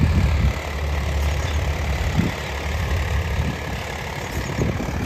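Swaraj 855 4x4 tractor's three-cylinder diesel engine running steadily while pulling an 11-tine cultivator in four-wheel drive, a little louder for the first half second.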